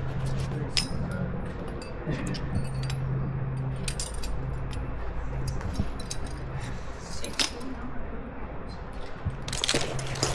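Climbing rack jangling on a climber's harness: carabiners, cams and nuts clinking together in scattered bursts as the climber moves, over a steady low hum.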